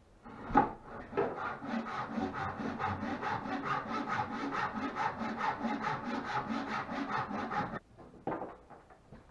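Hand saw cutting through the end of a wooden rub rail, in quick even strokes at about five a second that stop suddenly near the end. It opens with a sharp knock as the blade is set, and two lighter knocks follow the last stroke.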